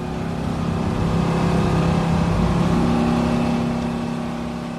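Bus engine running as a background sound effect, a steady hum that grows louder toward the middle and fades away near the end.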